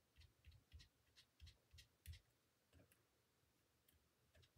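Very faint soft tapping of a sponge dauber dabbing ink onto paper, about three dabs a second for two seconds, then a few scattered dabs.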